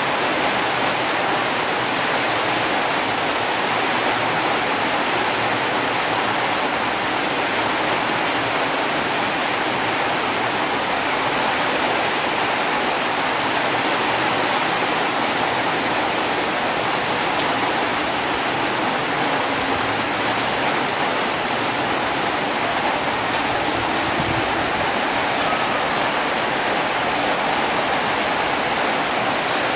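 Heavy rain falling steadily, an even, unbroken rush of water.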